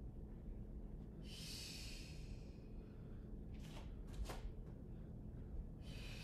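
Faint breathing of a person exercising through squats: a long exhale about a second in, two short sharp breaths around four seconds in, and another exhale near the end.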